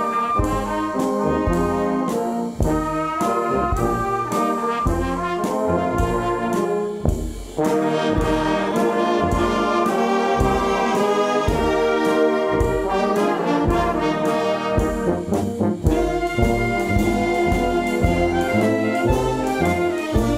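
A wind band with a full brass section playing an arranged show tune: trumpets and trombones carry the melody over a steady beat of low brass notes. There is a brief break about seven seconds in.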